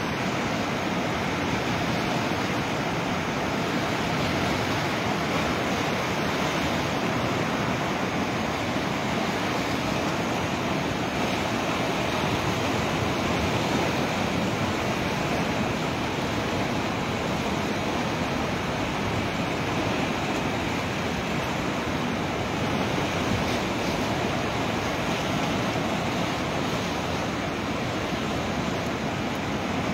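Steady rush of a muddy river in flood, fast water churning past a railed riverside walkway without a break; a flash flood that the onlookers take for the result of a cloudburst upstream.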